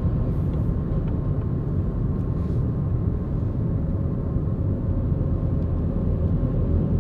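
Steady low rumble of a car driving, heard from inside the cabin: tyre and engine noise.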